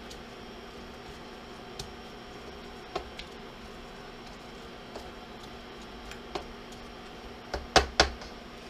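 Sliced onions sizzling in butter in a stainless steel pan, stirred with a wooden spatula that knocks against the pan now and then, with several knocks close together near the end. A steady hum runs underneath.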